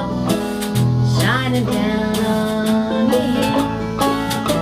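Acoustic guitar strummed and banjo picked together in an old-time country song, with a woman singing over them.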